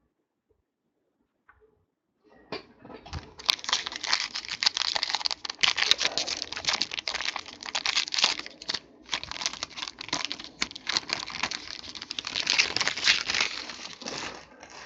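Wrapping of a trading card pack crinkling and tearing as it is opened by hand, starting about two and a half seconds in and going on as irregular crackling with a few short pauses.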